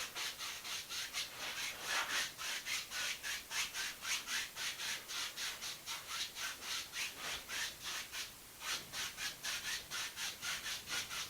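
Dry paintbrush scrubbing back and forth across a canvas, blending wet sky paint: quick, even strokes at about four a second, with a brief pause about three-quarters of the way through.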